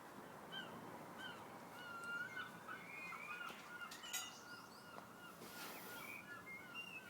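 Faint birdsong: small birds chirping, with a run of short repeated chirps at about three a second through the second half.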